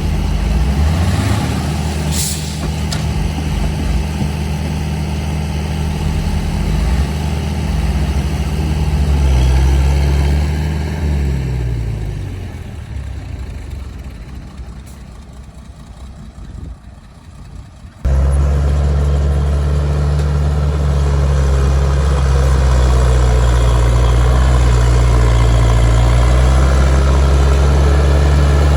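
Heavy diesel machinery engine running under a steady drone, its pitch shifting around ten seconds in before it fades away. It cuts off abruptly about two-thirds of the way through, and a close, steady diesel engine runs from there on.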